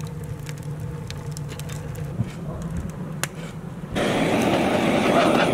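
Wood fire crackling in a tandoor's firebox, with scattered sharp pops. About four seconds in a handheld gas torch starts up with a loud, steady hiss that drowns the fire.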